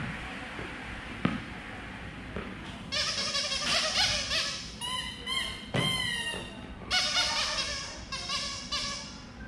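A ball knocks on the floor at the start and again about a second later. Then a run of high, wavering squeals comes and goes from about three seconds in until near the end.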